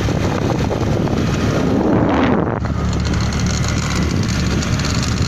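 Steady vehicle running noise with wind buffeting the microphone, heard from a moving vehicle; the sound shifts abruptly about two and a half seconds in.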